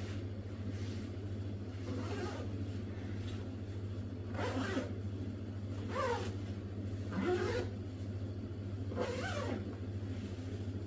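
Zipper on a Helicon-Tex softshell garment being pulled about five times in short strokes, each a brief rasping sweep, over a steady low hum.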